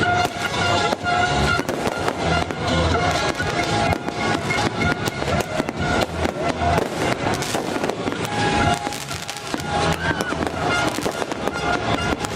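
A dense, irregular crackle of fireworks and firecracker bangs, with music playing underneath.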